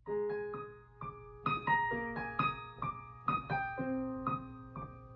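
Solo piano playing an instrumental passage without voice: single notes and chords struck about two to three times a second, each left to ring on.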